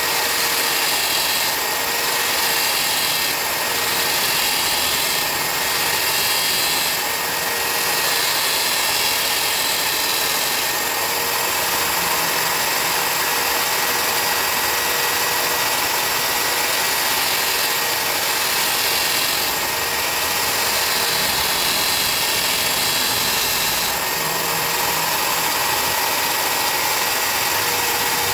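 Upturned electric circular saw fitted with an abrasive disc, running steadily with a constant whine. Over roughly the first ten seconds, and briefly later, a brighter grinding rasp comes and goes about once a second as a hand-planer blade is passed against the spinning disc to sharpen it.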